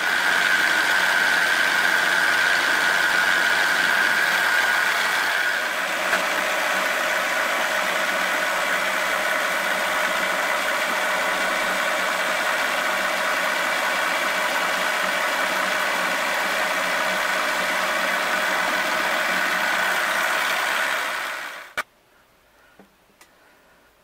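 Small milling machine running, its drill bit boring a hole into an aluminium block: a steady motor and cutting noise with a high whine that eases about five seconds in. The machine stops abruptly near the end with a click, followed by a few faint ticks.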